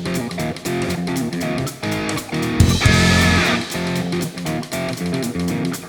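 Background music: an electric guitar-driven rock track with a steady beat.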